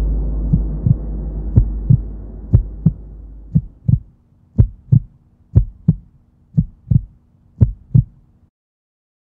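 Cinematic heartbeat sound effect: deep double thumps about once a second over a low rumble that fades out in the first few seconds. The beats stop about a second before the end.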